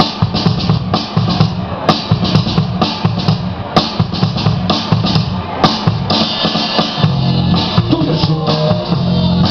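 Loud music with a steady drum-kit beat and some guitar.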